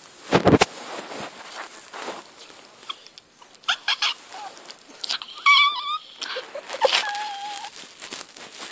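Small pinscher dog giving several short high whines and squeaks, one of them wavering. Bedding rustles and a thump of handling come about a third of a second in.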